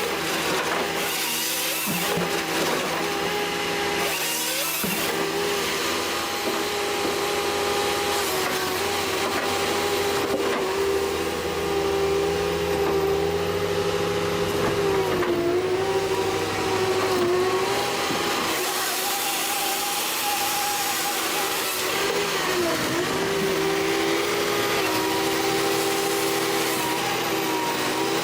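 A machine engine running at high revs with a steady whine, its pitch dipping briefly several times, amid the noise of cutting work.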